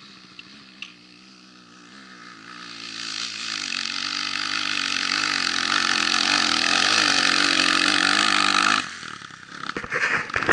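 Enduro motorcycle engine running, getting steadily louder over several seconds, then cutting off abruptly about nine seconds in, followed by a few short bursts of engine sound near the end.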